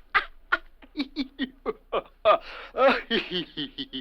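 A person laughing: a string of short voiced 'ha' bursts, several a second, with a couple of longer, stronger laughs about two to three seconds in.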